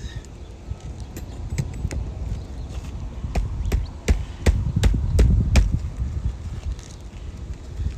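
Hand tools working loose staples and nails in asphalt roof shingles: a run of sharp metallic clicks and taps, thickest in the middle, over a low rumble.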